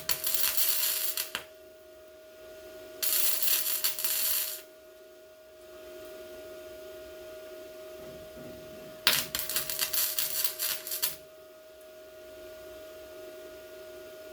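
Welder laying short welds on sheet-metal body panels, crackling in three bursts of one to two seconds each, with a steady hum underneath.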